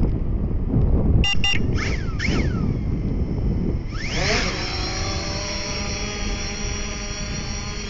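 A few short electronic beeps and chirps, then about four seconds in the Fimi X8 SE quadcopter's motors spin up with a rising whine and settle into a steady, many-toned propeller whine as the drone auto-takes off. Wind rumbles on the microphone.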